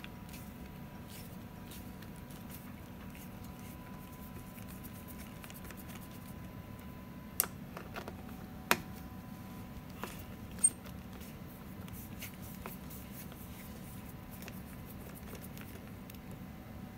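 Hand screwdriver backing fixing screws out of a steel ATM chassis rail: faint, irregular clicking and scraping of the driver on the screws and sheet metal, with three sharper metallic clicks between about seven and eleven seconds in.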